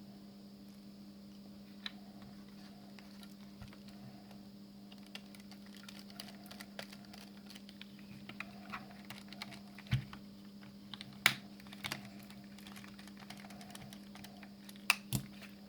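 Light plastic clicks and taps of headphone parts being handled and fitted together. They grow busier after the first few seconds, with a few sharper snaps later on, over a steady low hum.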